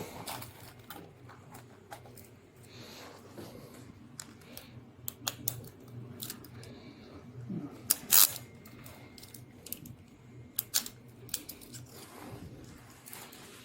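Scattered sharp clicks and small rattles from hard objects being handled, loudest around the middle and about three-quarters through, over a faint low room hum.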